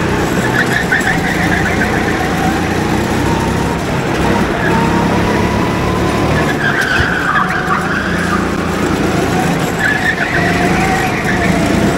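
Go-kart engine running steadily at speed, with tyres squealing through corners about halfway through and again near the end.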